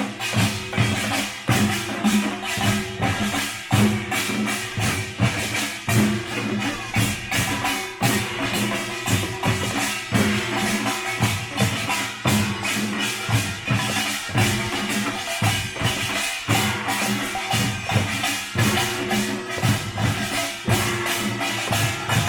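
Korean pungmul folk percussion band playing: drums and small metal gongs struck together in a fast, dense, driving rhythm.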